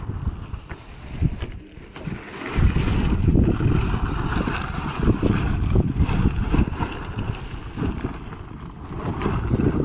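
Mini combine harvester running, largely buried under wind buffeting the microphone in uneven gusts that grow stronger about two and a half seconds in.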